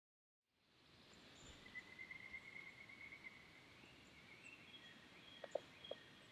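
Faint rural outdoor ambience that starts about half a second in after silence. A thin, steady high tone runs for about two seconds, and a few faint clicks come near the end.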